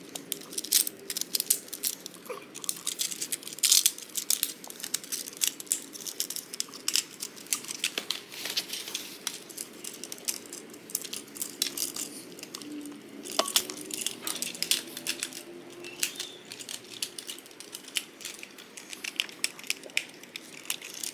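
Plastic clicks and rattles of a Transformers Optimus Prime toy's joints and panels being twisted and snapped by hand as it is transformed from robot into truck. The clicks come in irregular clusters.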